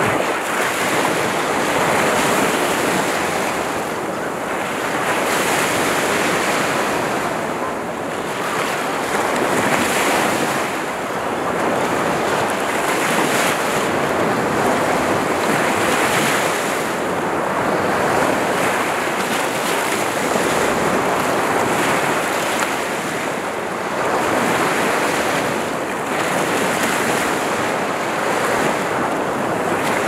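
Small sea waves breaking and washing in over rocks at the shoreline: a steady rush of surf that swells with each wave every few seconds.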